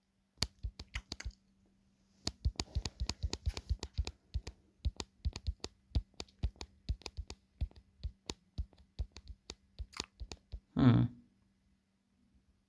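Thick craft wire being handled and bent on a wire figure: a long run of sharp clicks and snaps, densest a couple of seconds in. A brief louder, lower sound comes near the end, with a faint steady hum underneath.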